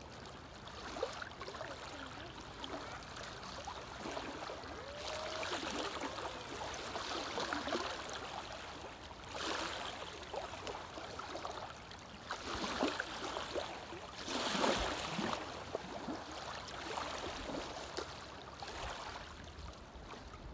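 Small lake waves lapping and washing up onto a gravel beach, each wave a splashing surge a second or so long, coming several times with a steady wash between.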